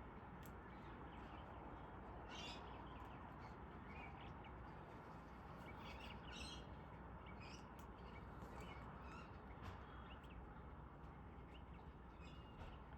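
Near silence: a steady faint hiss with scattered short, faint high chirps or clicks every second or two.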